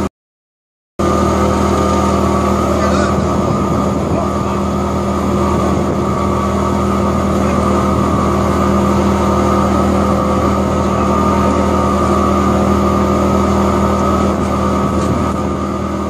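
Electric disc wood chipper running: a loud, steady machine hum with a constant whine over it. It comes in abruptly after about a second of silence.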